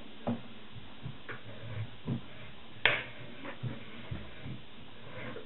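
Irregular metal clicks and knocks from a threading die in its die stock being handled and turned on a steel rod clamped in a bench vise, with one sharper clink about three seconds in.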